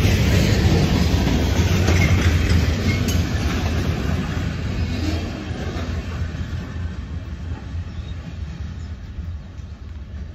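Freight train cars, boxcars and covered hoppers, rolling past on the rails with a low, steady wheel rumble that fades as the end of the train moves away.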